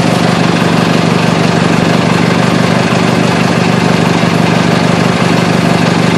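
1980 International Cub Cadet 582 garden tractor engine running steadily, warming up just after a cold start at about 40 degrees.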